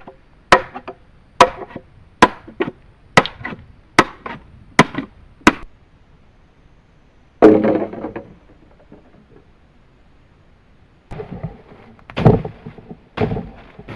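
Chopping wood with a blade: seven sharp, evenly spaced strikes, a little under one a second, then a longer, heavier crack about halfway through, and a few more chops near the end.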